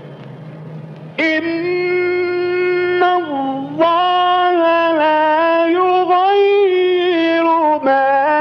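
Quran recitation in the Egyptian melodic style: one voice holds long, ornamented notes that shift in pitch, coming in loudly about a second in over a low hum.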